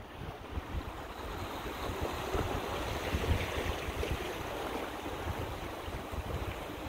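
Sea surf washing against the rocks of a breakwater, with wind buffeting the microphone. The wash swells about two to three seconds in, then eases.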